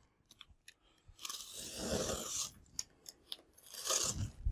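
Crunchy rustling and scraping of a cardboard box being handled, and a utility knife worked at its packing tape, with a few light clicks in between.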